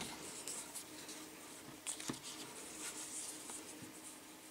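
Faint rustling of hands and a flexible tape measure being wrapped around a wrist, with a couple of soft clicks about two seconds in.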